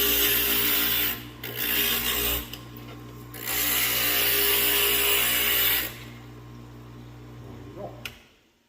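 An electric glass grinder's motor runs with a steady hum while glass is pressed against its wet grinding bit, giving a harsh grinding hiss in three bouts. The last and longest bout runs a couple of seconds. Near the end the motor is switched off and the hum stops.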